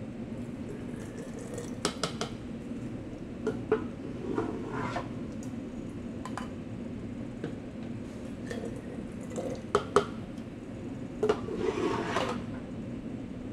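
Clinks and taps of a plastic measuring cup against a glass jar, with short pours of salt and water into the jar: a few sharp knocks spread through, and a longer pouring rush near the end.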